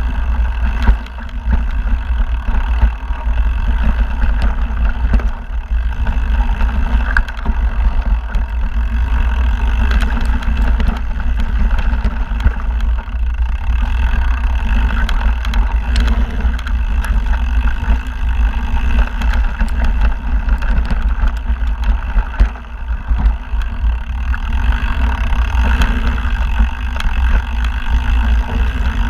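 Mountain bike riding fast down a dirt singletrack: a steady low rumble of tyres on the trail and wind over the camera microphone, with frequent clicks and rattles from the bike over bumps.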